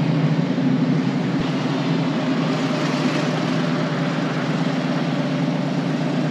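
Harley-Davidson motorcycle's V-twin engine running steadily, over a steady hiss of wind and road noise.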